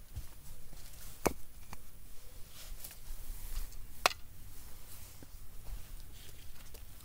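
Gloved hands handling wood and hand tools on a leaf-strewn woodland floor: dry leaves rustling, with a few sharp clicks and knocks, the loudest about a second in and about four seconds in.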